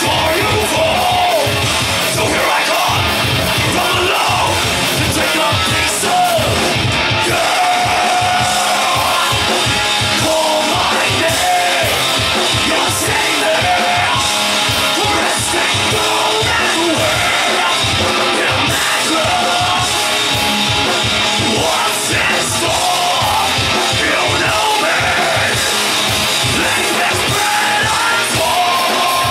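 Live heavy metal band playing: two vocalists yelling and singing over bass guitar, electric guitar and fast drumming on a drum kit.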